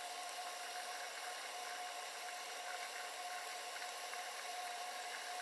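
Bathroom sink faucet running in a thin steady stream into the basin, with hands being washed under it. A steady tone sounds faintly under the hiss of the water.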